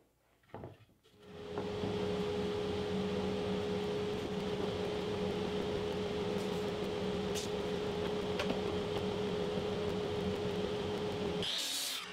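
A few light knocks of wood being handled, then the workshop dust collector starts about a second in and runs with a steady hum. Near the end comes a short, loud burst of noise.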